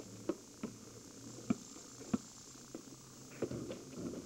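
Basketball bouncing on pavement: a string of short thumps at uneven intervals, about two a second.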